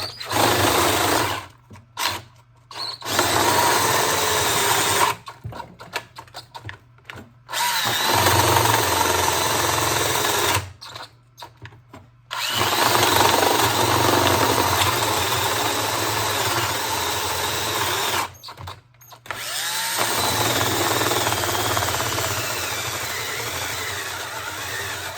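DeWalt cordless drill boring through two stacked 2x6 boards with a large bit under heavy load, in repeated runs of a few seconds, the longest about six, with short pauses between. The battery in it is not fully charged, and the last run fades a little.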